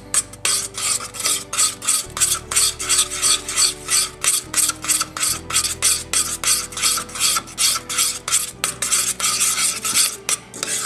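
Metal spoon stirring honey and sugar around a stainless steel saucepan, scraping the pan in a steady run of strokes about four a second as the sugar melts into the honey.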